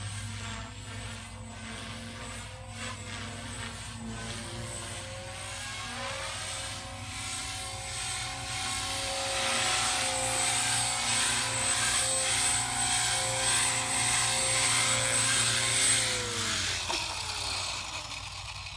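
Blade 300 CFX electric RC helicopter's brushless motor and rotor whining steadily, growing louder as it comes in low and close. About 16 seconds in the pitch falls and the sound fades as the motor spools down after landing.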